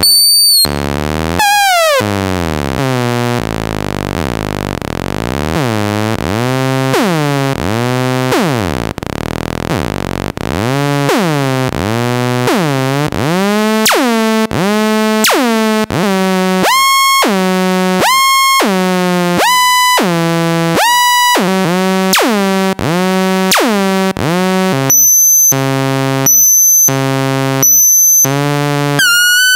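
MFOS Alien Screamer DIY synthesizer making repeated electronic falling pitch sweeps: long slow swoops in the first ten seconds, then faster chirps about once a second, each dropping into a steady low buzzing tone. Near the end the sound turns into short, choppy bursts with brief gaps as the switch settings change.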